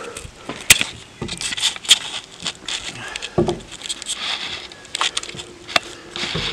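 Irregular crackles, scrapes and sharp knocks, a few of them loud clicks, with no steady sound beneath.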